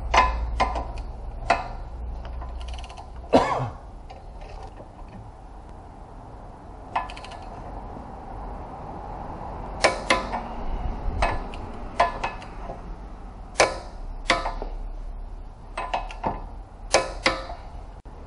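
Metal hand tools clinking and tapping against a brake caliper and rotor: irregular sharp clicks, a dozen or more, coming singly or in quick pairs, the loudest about three seconds in.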